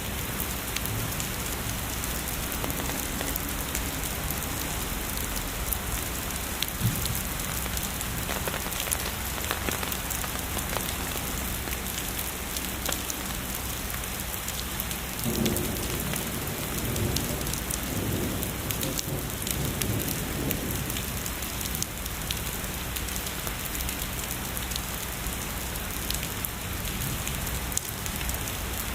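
Steady heavy rain falling on a surface, with sharp individual drop impacts scattered through it. A low rumble of distant thunder swells in about halfway through and lasts several seconds.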